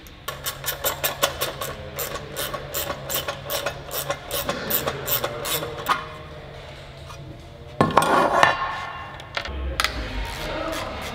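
Hand tools working on a Peugeot 309 GTI engine's cylinder head: a fast, even run of metallic clicks, about five a second, for the first six seconds, then a short loud clatter of metal parts about eight seconds in and a low thud near the end.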